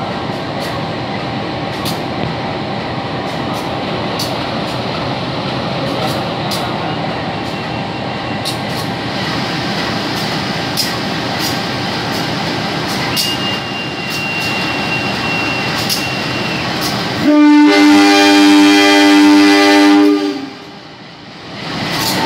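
CC 203-class diesel-electric locomotive standing with its engine running steadily, with scattered clicks. About three-quarters of the way through it sounds one loud horn blast lasting about three seconds.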